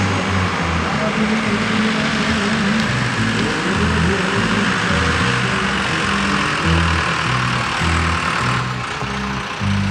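Background music with a steady bass line of changing notes, over the steady noise of an engine running, which cuts off near the end.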